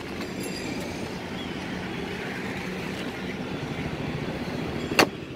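Steady vehicle hum in the background, and one sharp snap about five seconds in as the scooter's hinged seat is shut and latches.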